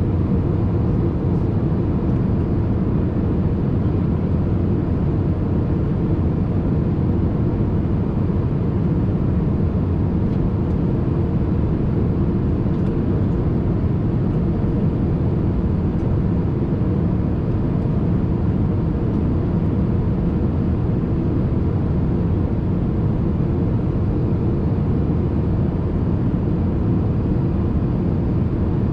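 Steady cabin noise inside an Airbus A380 in flight: an even, low rush of engines and airflow that does not change.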